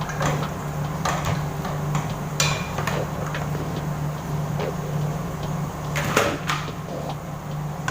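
Kitchen handling noise: several separate knocks and clatters, loudest about 2.4 s and 6 s in, over a steady low hum.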